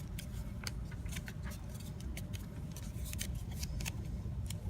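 Paper crinkling and creasing as an origami frog is refolded by hand: irregular crisp crackles and clicks over a low steady rumble.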